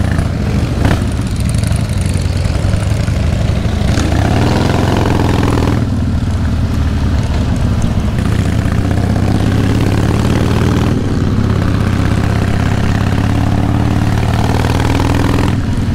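Harley-Davidson motorcycle's V-twin engine heard from the saddle, pulling hard under way. Its pitch climbs and drops back twice as the rider shifts gear while accelerating.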